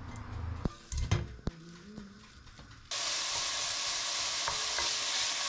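Ground pork sausage meat sizzling steadily as it fries in a pan, starting abruptly about three seconds in. Before it come a few light knocks and clicks.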